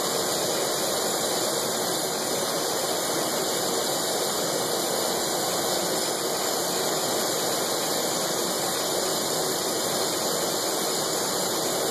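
Glassblower's torch flame hissing steadily while a glass piece is turned in it to preheat a ring seal.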